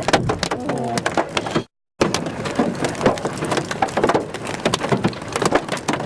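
Hail and rain pelting a car's body and windows: a dense, irregular rattle of sharp hits over a steady hiss. The sound cuts out completely for a moment a little under two seconds in, then the pelting carries on.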